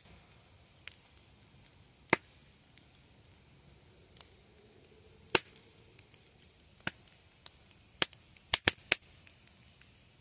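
Wood fire crackling and popping: sharp snaps about two, five and eight seconds in, a quick run of three near the end, and fainter ticks between, as the burning logs spit sparks.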